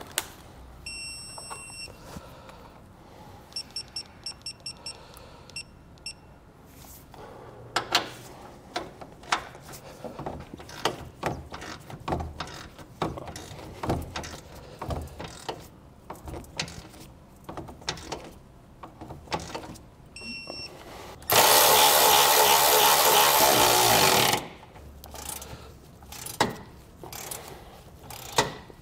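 Wrench clicking in short runs as a base plate bolt is tightened, with short electronic beeps near the start, a quick series of beeps a few seconds in and another beep about twenty seconds in, typical of a digital torque wrench. About two-thirds through, a loud steady buzzing noise lasts about three seconds.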